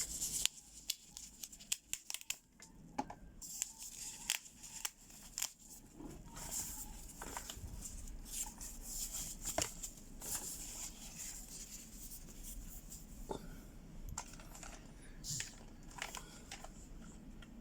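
Tape being peeled off a keyboard's packaging, with plastic crinkling and scattered clicks and taps of handling, busiest in the first half.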